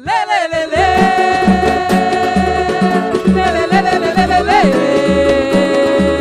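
Pagode band music starting up after a brief break: a long held melody note wavering in pitch over a steady bass and percussion groove.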